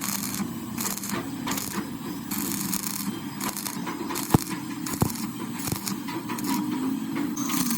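Hand metalworking on a drive shaft: a run of short, irregular scraping strokes over a steady low hum, with one sharp metallic knock about four seconds in.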